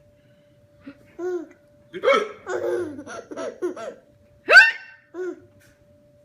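A man hiccuping and a baby laughing at it: a run of quick laughter in the middle, then one very loud, sharp hiccup near the end.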